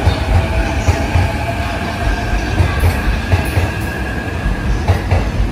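JR E531 series electric multiple unit running past a station platform: a low rumble of wheels on rail with a steady whine over it, and a few sharp clacks near the end.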